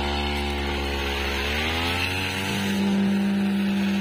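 Backpack brush cutter engine running, holding a low steady speed and then rising in pitch about two seconds in as the throttle is opened, settling at a steady high speed ready to cut.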